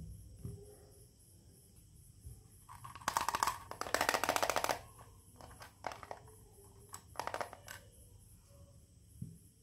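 Small plastic toy kitchen pieces being handled: a dense run of rapid plastic clicks lasting over a second about three seconds in as a toy blender's jar is worked against its base, then a few shorter clatters.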